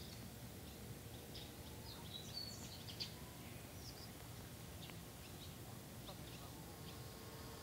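Faint scattered bird chirps and short whistled calls over quiet outdoor background noise, with one brief held note about two and a half seconds in.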